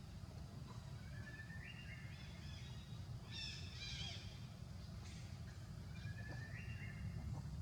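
High-pitched animal calls: a thin call rising in steps about a second in, a short burst of chirps near the middle, and another stepped rising call near the end, over a low steady outdoor rumble.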